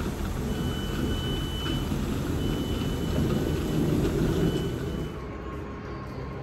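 Class 165 diesel multiple unit standing at a platform with its engine idling: a steady low rumble, with a high steady tone sounding three times over it. About five seconds in this changes to the quieter hum of a Class 455 electric unit standing at a platform, with a faint steady whine.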